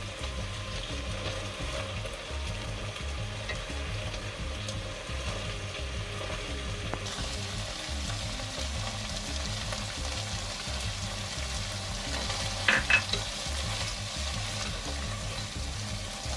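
Food sizzling in a pot, a steady hiss that grows fuller about seven seconds in, with two or three sharp utensil knocks about thirteen seconds in. Background music with a steady beat plays underneath.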